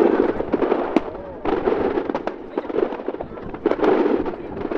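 Aerial fireworks: a sharp bang about a second in, then two waves of dense crackling, the second starting near the end.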